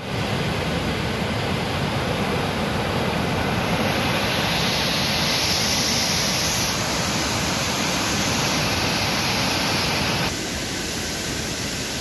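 Waterfall rushing close by, a steady, even rush of falling water. About ten seconds in it drops to a quieter rush.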